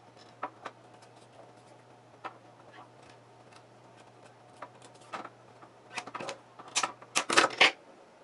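Nylon cable tie being fastened around wire on a plastic antenna bracket: scattered light clicks and knocks of handling, then a quick run of ratchet clicks about six to eight seconds in as the tie is pulled tight, the loudest part.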